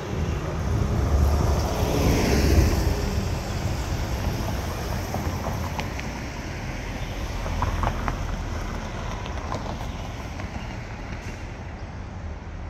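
City transit bus passing close by, its engine and tyres swelling to loudest about two seconds in and then fading, followed by steady, quieter street traffic noise.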